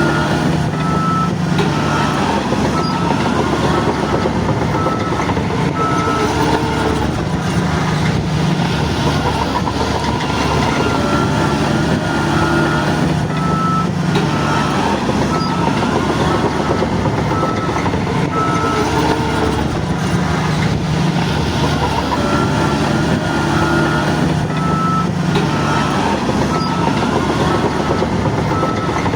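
Bulldozer's diesel engine running under changing load, with its reversing alarm beeping about once a second.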